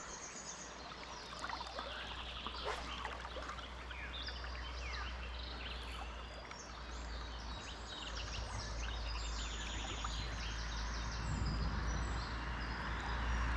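Several birds singing with quick repeated chirps and trills over the steady rush of river water, with a low rumble growing louder in the second half.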